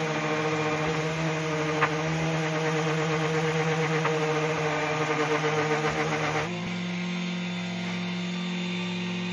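Electric power sanding tool running steadily, its motor hum under the rough rasp of abrasive on wood. About two-thirds through the rasping drops away and a steadier, slightly lower motor hum carries on.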